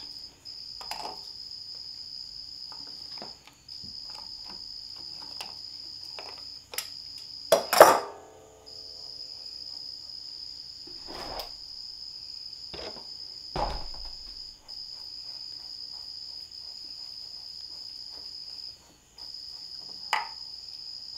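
A cricket trills steadily in a high pitch, breaking off briefly now and then. Over it come scattered metal clanks and knocks as pliers work a transmission's canister filter loose. The loudest clank, about eight seconds in, rings briefly.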